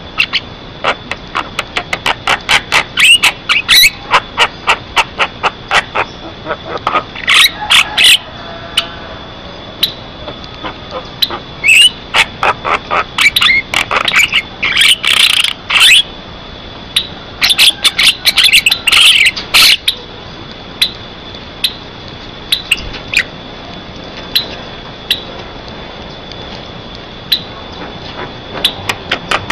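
Javan myna (jalak kebo) calling vigorously: rapid runs of sharp clicking notes broken by bursts of harsh chattering, thinning to scattered single clicks in the last third.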